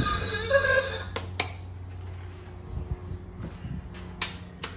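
A few sharp metallic clicks of hand tools being handled, two about a second in and two more near the end, over a low steady hum.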